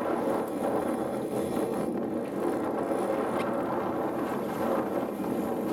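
Steady noise of a fishing boat at sea: the boat's engine and the water, with wind buffeting the microphone.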